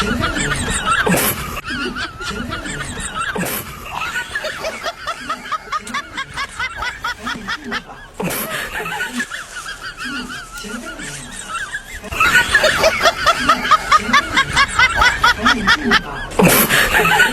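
High-pitched snickering laughter in quick, repeated giggles that run on in bouts, louder from about twelve seconds in.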